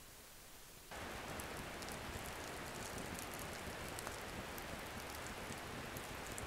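Campfire burning: a steady hiss with many small pops and crackles, starting abruptly about a second in.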